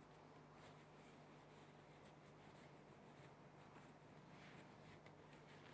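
Near silence: faint room tone with a low steady hum and a few faint light taps and rubbing sounds.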